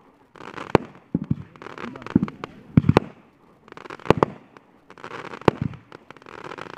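Fireworks going off: a string of sharp bangs, some in quick twos and threes, with bursts of crackling hiss between them.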